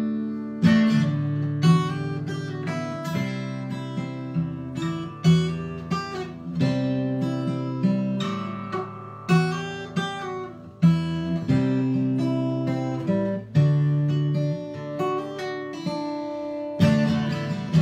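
Acoustic guitar strummed solo, a chord struck about every second and left to ring out before the next, with no singing.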